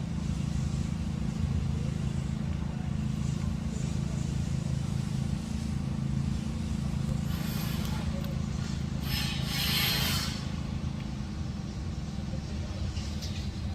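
Heavy truck engine running steadily at a concrete pour, with two short hisses about halfway through.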